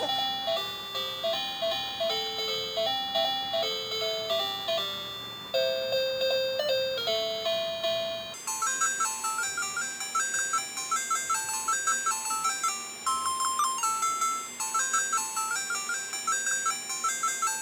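Cheerful children's background music: a simple, bouncy melody of short bell-like notes, moving up to a higher register about eight seconds in.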